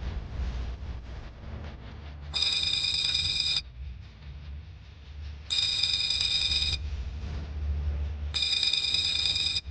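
An electronic ringing tone, three rings of a little over a second each, about three seconds apart, over a steady low rumble.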